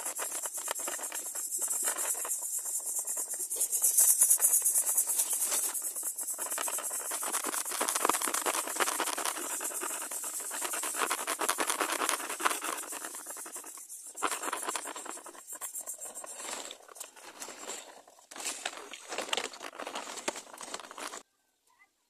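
Greater coucal nestlings begging with a harsh, crackling hiss that swells and fades in uneven bursts. It becomes patchier in the last third and stops abruptly near the end.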